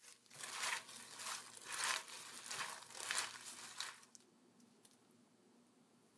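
Crisp lettuce leaves rustling and crunching as they are mixed in a glass bowl, in about six bursts that stop about four seconds in.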